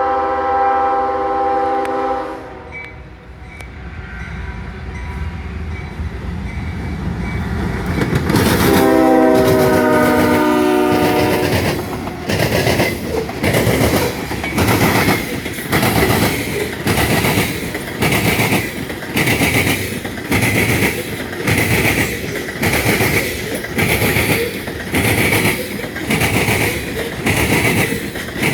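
Air horn of a GE ES40DC locomotive sounding twice, a blast of about two seconds and then a longer one of about three seconds, over a rumble that grows as the train draws near. Then the loaded coal cars roll past with a steady clickety-clack of wheels over rail joints, about one beat a second.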